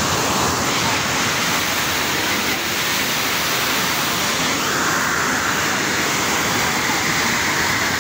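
Steady rush of water pouring down an ornamental waterfall wall.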